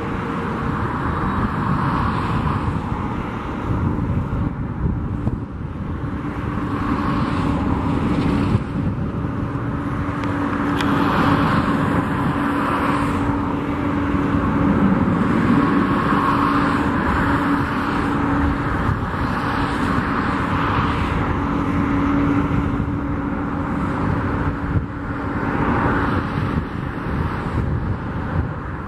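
Boeing 767-200F freighter's jet engines running at taxi idle: a steady engine noise with a faint low hum, swelling and fading every few seconds.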